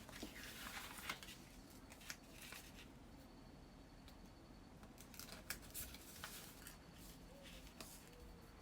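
Faint handling of paper cardstock and crafting tools: a soft scraping rustle in the first second or so, then scattered small clicks and taps, several close together about five to six seconds in.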